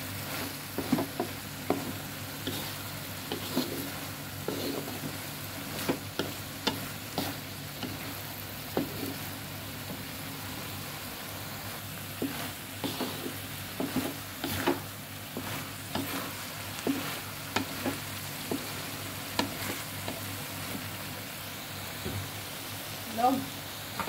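Long beans and tempeh sizzling in an aluminium wok while a wooden spatula stirs them, with irregular scrapes and taps of the spatula against the pan over a steady frying hiss.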